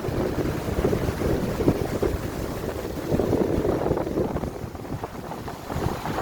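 Wind buffeting the microphone in uneven gusts, over the rushing of sea water.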